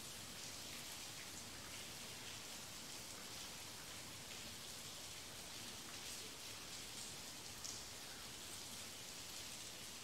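Steady light rain falling, a soft even hiss of drops with one slightly sharper drop tap about three-quarters of the way through.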